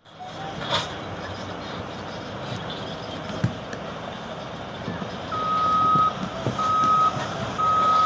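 Volvo articulated dump truck tipping its load, with a steady rumble of engine and sliding dirt; from about five seconds in a backup alarm beeps at one steady pitch, three times, each beep lasting well under a second.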